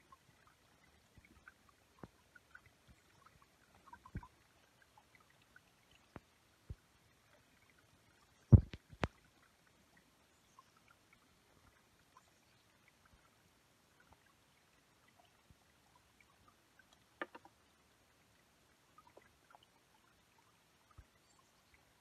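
Small stone waterfall trickling into a shallow pebble pond, heard as faint scattered drips and plops of water. There are a few louder thumps: two close together about eight and a half seconds in, and one near seventeen seconds.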